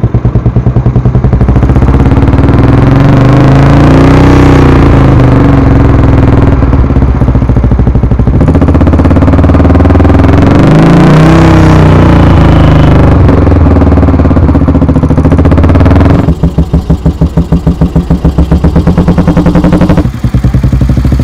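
Royal Enfield Bullet 350's single-cylinder engine, heard loud through aftermarket Bullet King exhausts. It idles with a steady pulsing beat, is revved up and let fall back twice, then idles again. The sound changes abruptly near the end as the footage switches to a different silencer.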